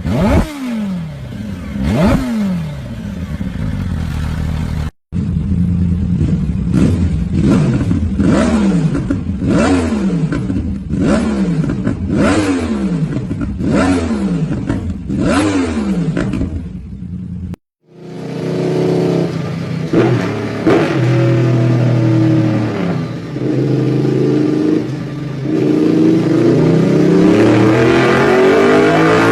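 Motorcycle engines revved hard in a string of short clips. Quick throttle blips with pitch that falls away after each, about one a second. Then, after a cut, an engine pulling up through the revs with a rising pitch near the end.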